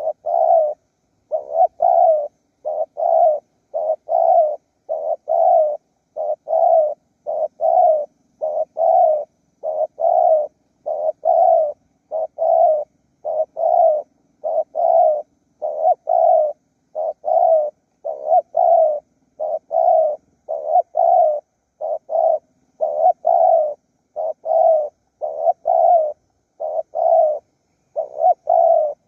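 Spotted doves cooing: short, low coo notes repeated over and over in a steady, even run.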